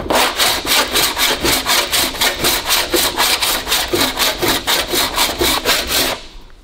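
Adjustable body file rasping across an aluminium bonnet panel in quick, even strokes, shaving the high spots so the low spots show up during metal finishing. The filing stops about six seconds in.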